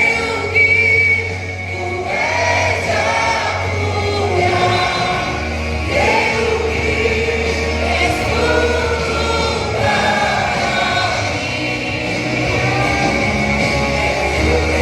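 A church vocal group singing a gospel song in harmony over instrumental backing, with a sustained bass note that changes every couple of seconds.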